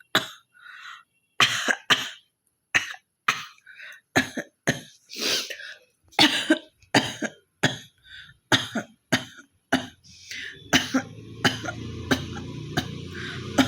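A woman coughs and hawks again and again: about twenty short, sharp coughs, one or two each second. From about eleven seconds in, a steadier rough noise with a low hum runs under the coughs.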